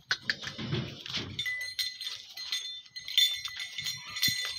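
A short animal call in the first second or so, then steady metallic jingling, like small bells, through the rest.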